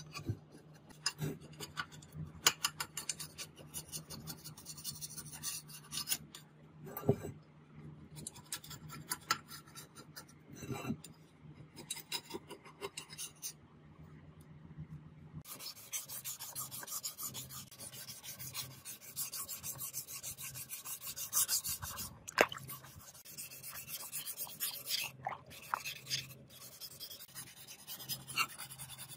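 Flat steel blade scraping old residue off the rim of a speaker's frame in irregular rasping strokes, over a low steady hum. About halfway through the hum stops and the scraping becomes denser and hissier.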